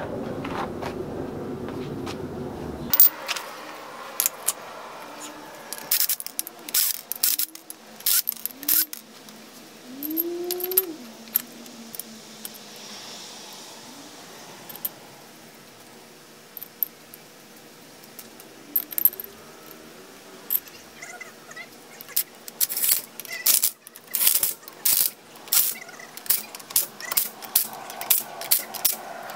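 Metal tools and hardware clinking and clattering during wheel spacer replacement, in irregular clusters of sharp clicks: one run about a fifth of the way in, a busier run near the end, and quieter stretches between.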